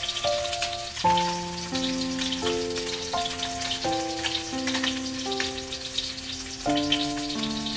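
Fish frying in shallow oil in a steel wok, the oil sizzling with a steady crackle of small pops. Background music of sustained keyboard-like notes plays alongside, changing chord about every second.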